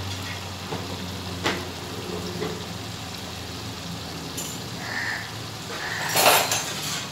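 Fish curry simmering in a wok with a faint, steady sizzle. A spoon knocks the pan once about a second and a half in, then scrapes it briefly and more loudly near the end.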